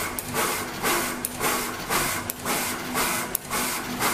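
Pneumatic SMT pick-and-place machine running at full speed: rhythmic puffs of air hiss about two or three times a second as the head picks and places parts, with a few sharp clicks and a steady low hum underneath.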